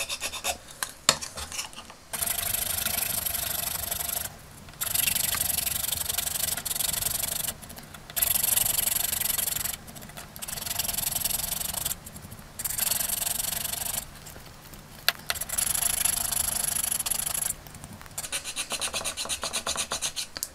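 Small needle file rasping back and forth on hard plastic, flattening the snapped stub on a toy jet's broken tail fin: runs of filing a couple of seconds long with brief pauses between, and quick short strokes near the end. Twice there is a sharp tick.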